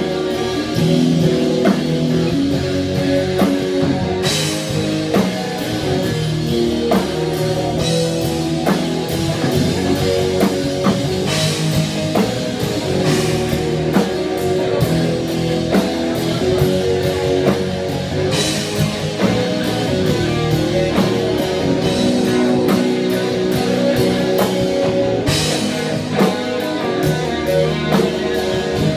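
Rock band with guitar and drum kit playing a live instrumental accompaniment to a silent film, with a cymbal crash about every seven seconds.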